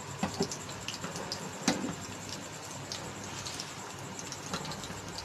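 Skewered beef seekh kababs crackling over an open gas burner flame: a steady hiss with scattered small pops, a sharper one a bit under two seconds in.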